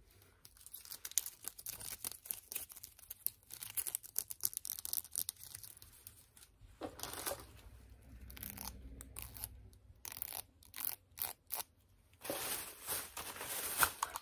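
Clear plastic packaging crinkling and crackling as it is handled with long fingernails, a run of quick irregular crackles and clicks. There is a longer, louder stretch about seven seconds in and another near the end.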